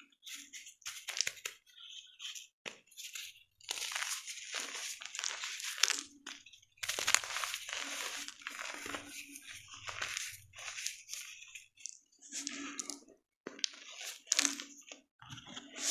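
Blocks of gym chalk being crushed and crumbled, with crisp crunching in irregular bursts, including two longer runs of dense crunching in the first half.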